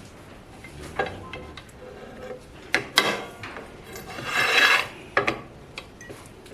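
Metal clamps being moved and set on a cast-iron part: several sharp metallic knocks and clicks, with a rasping scrape of metal on metal a little after four seconds in.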